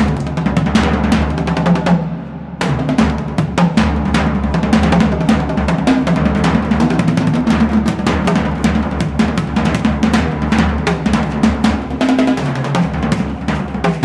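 Loud, fast drum-heavy music: rapid drum hits over a steady low undertone, with a short break about two seconds in before the drumming comes back.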